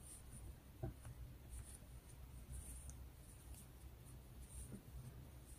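Faint rustle of combed-cotton yarn and light ticks from a 3.5 mm metal crochet hook working double crochet stitches, with one slightly sharper tick about a second in.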